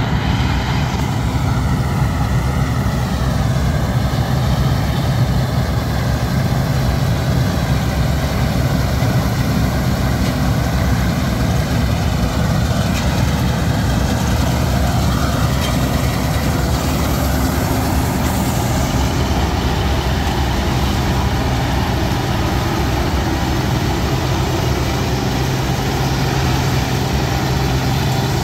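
Bizon Rekord Z058 combine harvester at work, its diesel engine running steadily at working revs along with the machinery's whir as it drives past. A faint whine shifts up and down in pitch in the first half.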